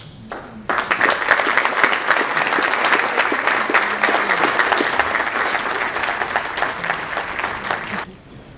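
Audience applauding, many people clapping together. The clapping starts about a second in and cuts off suddenly near the end.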